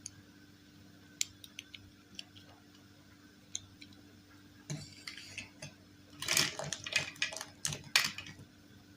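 Small hard objects being handled: scattered light clicks, then a busier stretch of clicking and rustling clatter from about five seconds in until shortly before the end.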